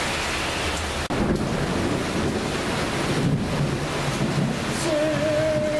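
Heavy rain falling in a steady hiss, with low rumbling noise on the phone's microphone. Near the end a voice starts holding a long note.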